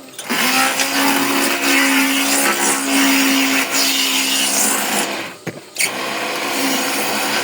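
Electric power tool running under load as it works wood, a steady motor hum over coarse cutting noise. The tool cuts out briefly about five and a half seconds in, then starts again.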